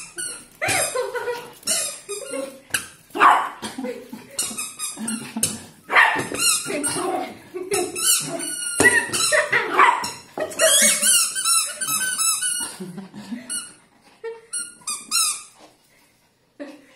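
Chihuahua yapping and yipping excitedly, many short high-pitched yaps one after another, thinning out near the end.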